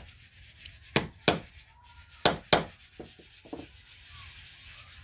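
Hammer tapping the metal centre piece of a homemade wooden grinder disc: sharp knocks in two pairs, then a few lighter taps.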